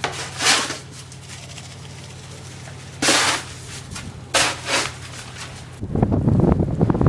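Snowstorm wind: a few short hissing gusts over a steady low hum, then from about six seconds in loud wind buffeting the microphone.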